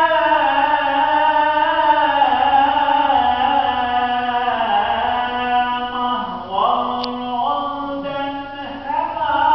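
A single man's voice chanting unaccompanied, in long held and ornamented notes that slide up and down in pitch: a solo religious recitation. It takes a breath and starts a new phrase about six seconds in, and again about nine seconds in.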